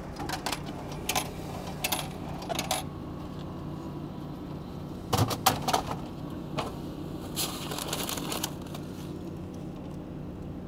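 Locker-style vending machine dispensing: a few sharp latch clicks, then a louder clunk about five seconds in as its glass compartment door is pulled open, followed by a longer rustle as a plastic-packed sandwich is taken out, over a steady low hum.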